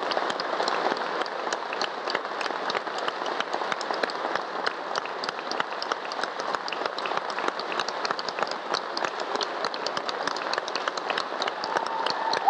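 Concert audience applauding: dense, steady clapping that holds at an even level.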